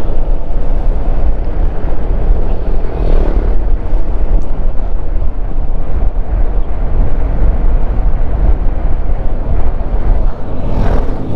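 Heavy wind rumble on the microphone while riding a Yamaha XMAX scooter, with the engine and road noise running steadily underneath.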